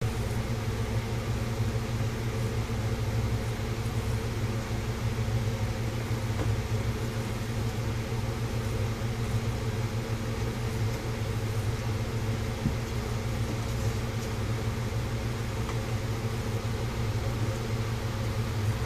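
Steady low mechanical hum of a household appliance running, unchanging throughout, with a few faint soft taps.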